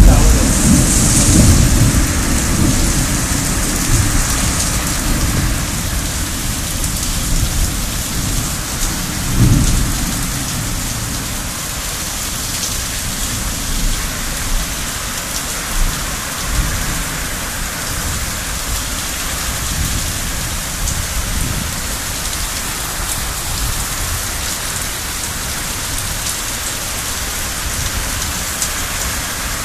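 Heavy rain pouring down steadily. Low rumbling is loudest in the first couple of seconds, surges again about nine seconds in, then eases off.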